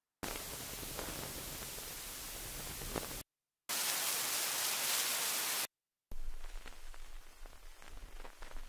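Noise samples previewed one after another on an Akai Force: a steady full hiss that cuts off about three seconds in, then a brighter white-noise hiss with no low end that cuts off after about two seconds, then a grainier noise with a low rumble. Each stops dead as the next file is selected.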